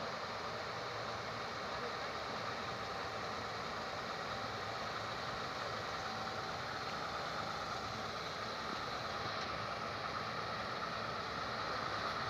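Engine of a heavy truck-mounted drilling rig running steadily as it slowly approaches, getting a little louder near the end.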